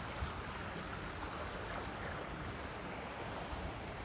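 Steady rush of flowing water running through concrete fish-farm raceway ponds, fed by a continuous running-water inlet.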